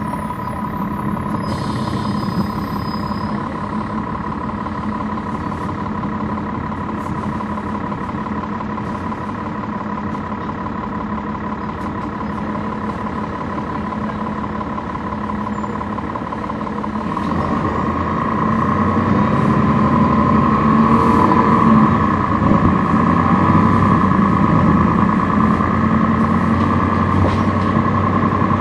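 Cummins ISL9 diesel engine of a NABI transit bus, heard on board, running under way with a steady whine over the engine roar. About 17 seconds in, the roar and the whine grow louder.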